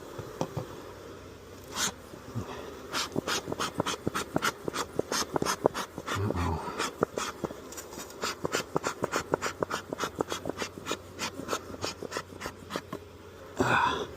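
Metal hive tool scraping and clicking against a wooden hive frame, scraping off burr comb in a quick, irregular run of sharp scrapes, about three or four a second.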